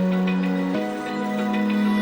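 Background music: a soft, sustained synth chord progression, the chord changing about three-quarters of a second in.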